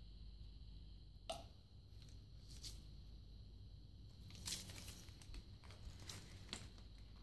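Quiet handling noises of PVC pipe being glued into a tee fitting. There is a sharp click about a second in, then scraping and paper rustling about four and a half seconds in as the cemented pipe is pushed into the fitting and shifted on the paper.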